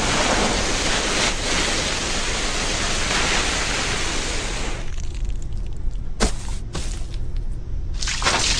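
Loud rushing hiss of a blast of dust and grit spraying over a person, thinning out about five seconds in. A sharp crack comes about six seconds in, and near the end a new rush of spray as water pours down.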